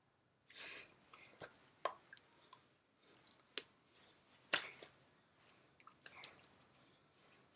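Scattered hand noises from a person signing: a handful of sharp taps and slaps as the hands strike each other and the shirt, with a brief rustle of fabric about half a second in.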